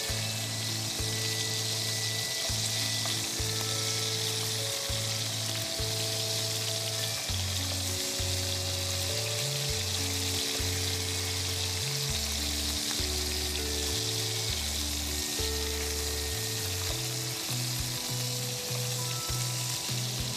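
Skewered chicken sticks sizzling steadily as they fry in oil in a pan. Background music of slow, held low notes plays underneath.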